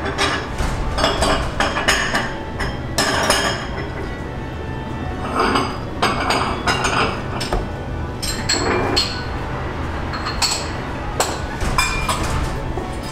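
Dishes and glassware clinking, with sharp knocks scattered irregularly throughout, over a steady low hum.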